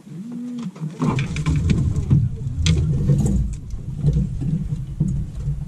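Footfalls and knocks on a boat deck as an angler moves about and handles a landing net during a hookup, heard as a heavy low rumble with scattered sharp clicks starting about a second in. A short murmured voice comes just before the rumble begins.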